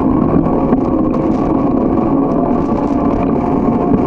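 Steady rushing road and wind noise from a moving bicycle, with a few faint clicks and rattles over it.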